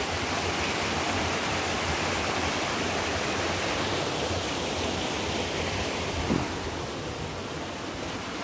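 Water rushing over the rocks of a small stream cascade, a steady rush. A brief thump about six seconds in.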